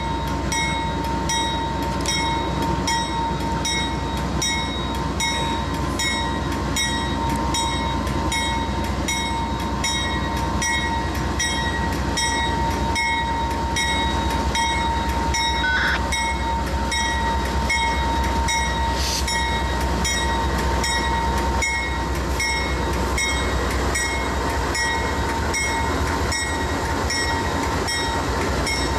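CSX double-stack freight train passing close at speed, its GE diesel-electric locomotives running under power with the steady rumble of wheels on rail. A steady high-pitched ring carries on throughout.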